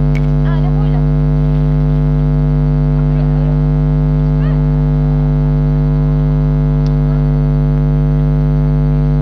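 Loud, steady electrical hum with many overtones that does not change, with a faint voice audible now and then underneath.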